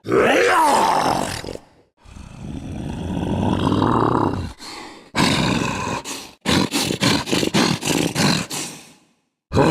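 Homemade Totoro creature roars voiced by a person: a pitched roar that rises and falls, then a long rough growl that swells, then a quick run of short pulsed grunts that fades out.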